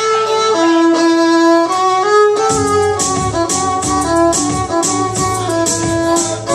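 Electric violin playing a bowed melody of long held notes over a recorded backing track; about two and a half seconds in, a bass line and a steady drum beat come in under the violin.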